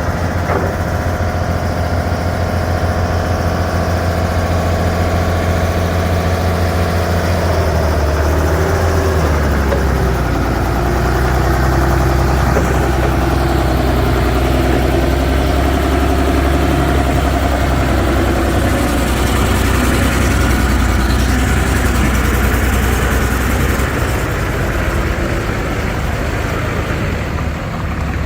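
An engine running steadily close by, its pitch dropping and settling about eight seconds in, and easing slightly near the end.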